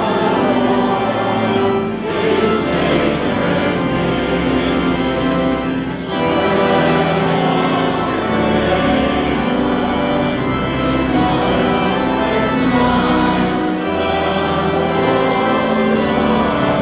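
Church organ playing a hymn in held chords that change every few seconds, with the congregation singing along.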